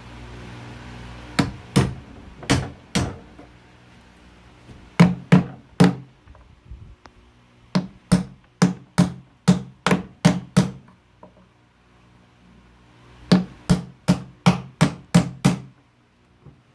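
Hammer striking a nail set, punching nails through the wooden frame of a trunk: sharp taps in runs of three to eight, about two or three a second, with short pauses between runs.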